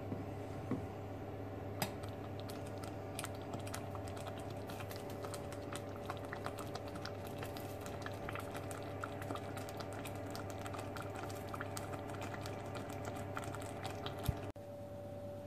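Sauce simmering in a stainless-steel saucepan on a hob: a stream of small, irregular pops and ticks from bursting bubbles over a steady low hum. The popping stops suddenly near the end.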